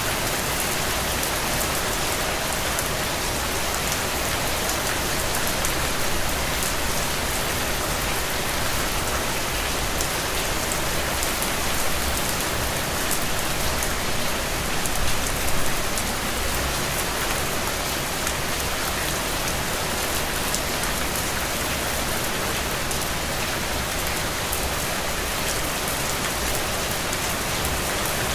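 Steady rain falling, a dense even hiss with fine patters of individual drops, swelling slightly a couple of times.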